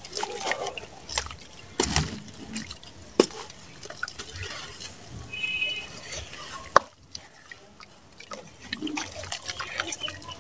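Wet sand being crumbled and squeezed by hand in a metal basin. Gritty crunching and the patter of falling wet grains are heard, with a few sharp crackles. Toward the end comes wet squelching in muddy water.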